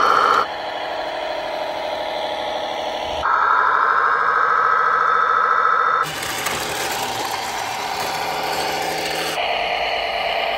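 Radio-controlled model tractors and trucks running, with a steady engine-like drone and whine from their motors and drivetrains. The sound changes abruptly three times, each part a different machine.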